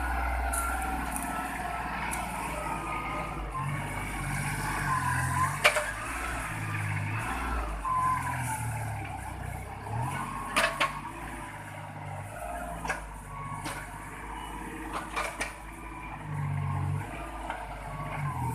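Engine of an oil palm fruit lifting machine working, its note rising and falling with the load. Whining tones glide up and down, and a few sharp knocks break through.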